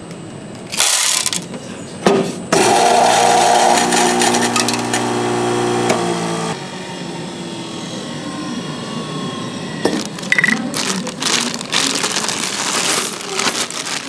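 A small electric motor runs with a steady hum and a grinding noise for about four seconds, then cuts off. Sharp knocks and clatter come before and after it.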